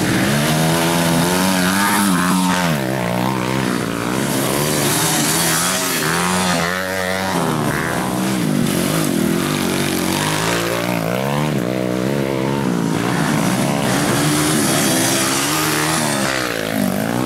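Dirt bike engine revving up and down over and over, its pitch rising and falling every second or two as it is ridden along a rough dirt trail.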